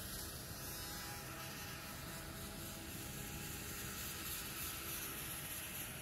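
A steady hum over constant background noise, with no distinct knocks or changes.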